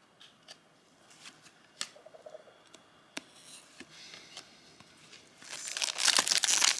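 Light scattered clicks and rustles of trading cards being handled. About five and a half seconds in, a loud run of crinkling and tearing as a card pack wrapper is ripped open.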